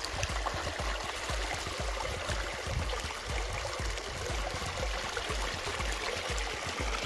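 Water pouring through a gap in a beaver dam of sticks and mud, a steady trickling, splashing flow.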